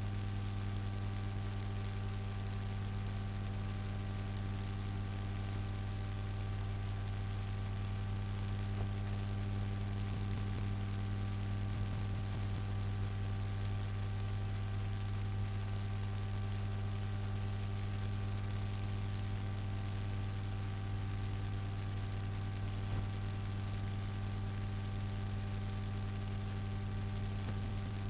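Steady electrical mains hum in the audio line: a strong low drone with a row of evenly spaced higher overtones, over a constant hiss. It does not change.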